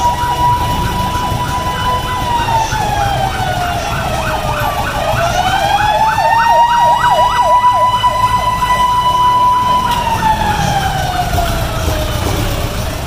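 Emergency vehicle sirens. One wails slowly up and down, falling and rising every few seconds, while a second fast yelping sweep runs over it, above a low rumble of street traffic engines.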